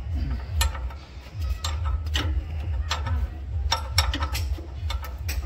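Irregular sharp clicks and knocks of metal parts and tools being handled during a repair of the thresher wheel, over a steady low rumble.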